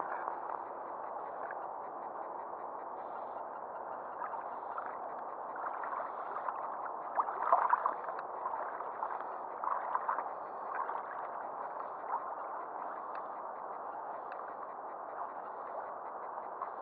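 Small waves lapping and gurgling against the side of the angler's craft, with a few louder splashy bursts about seven to eight seconds in and again near ten seconds.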